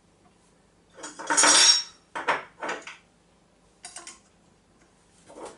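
Parts of a KitchenAid meat grinder attachment being fitted together by hand: the perforated grinding plate and metal fittings clatter and click against the housing in a few short bursts, the longest about a second in. The mixer's motor is not running.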